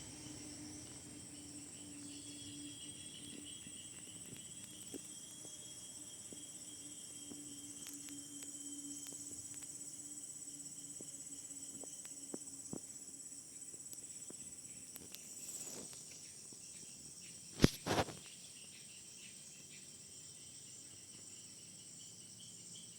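Insects chirring steadily in high, shrill tones. Two sharp knocks come close together about eighteen seconds in.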